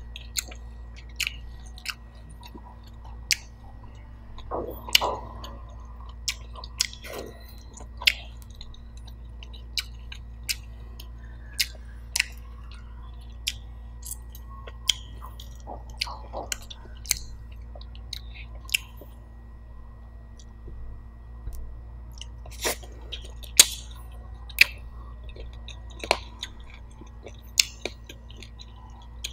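Close-miked chewing and biting of roast chicken: sharp, irregular crunches and wet smacks, a second or two apart, as the meat is bitten, torn and chewed.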